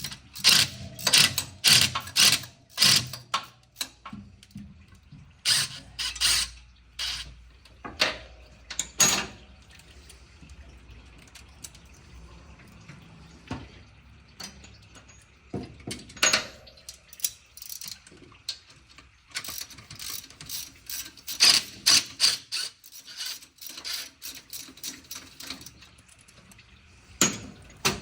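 Hand ratchet wrench clicking in runs of quick strokes with pauses between, as bolts are loosened during an engine teardown.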